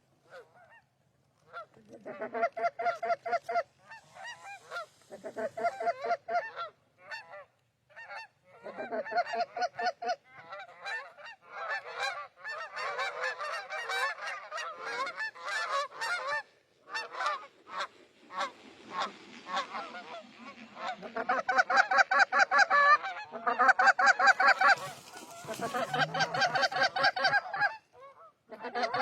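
Geese honking and clucking in long runs of quick calls with short pauses between them, growing louder in the last third.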